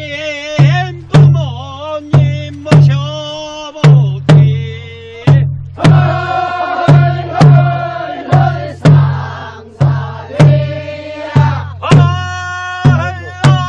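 A Korean barrel drum (buk) struck steadily about twice a second, under a group of voices singing a rice-paddy weeding work song.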